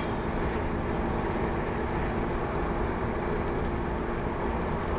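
Steady road noise inside a moving car: a low rumble of tyres and engine with a faint steady hum.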